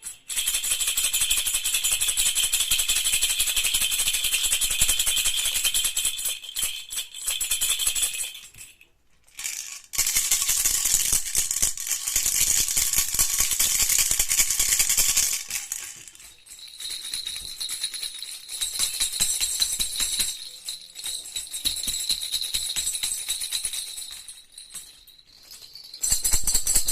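Toy baby rattles (jhunjhuna) shaken hard and fast, giving a dense, high, jingling rattle with a bell-like ring. The shaking stops and starts again several times, with a short pause about nine seconds in.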